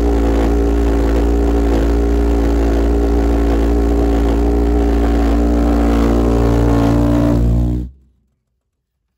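450 lb thrust 'Super Dragon' pulsejet engine running at full power: a loud, steady, deep pulsing drone. The sound cuts off suddenly near the end.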